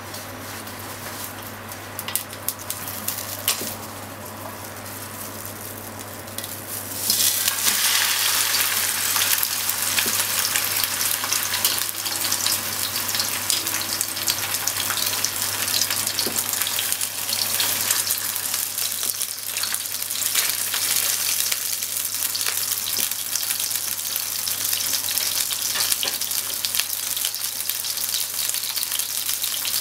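Hot oil crackling quietly with a few pops in a nonstick frying pan. About seven seconds in, a salmon fillet goes into the oil and a loud, steady sizzle starts suddenly and keeps on as the fish fries.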